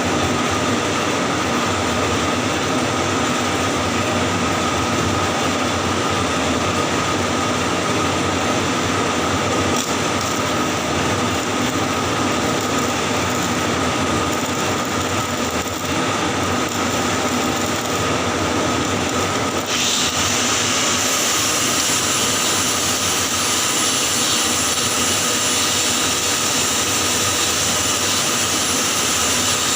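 Continuous, steady noise from a welding arc during pipe welding, carrying a steady mid-pitched tone. About two-thirds of the way through, a brighter hiss joins in.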